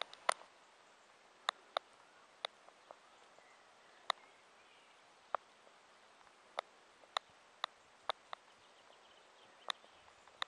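Scattered sharp clicks, about fifteen at uneven intervals, over a faint steady outdoor hiss.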